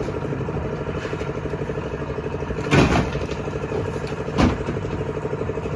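An engine running steadily at an even speed, with two short noisy scraping bursts about three and four and a half seconds in.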